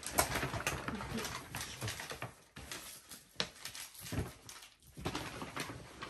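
Paper and gift bags rustling and crinkling as they are handled, with a few sharp small clicks.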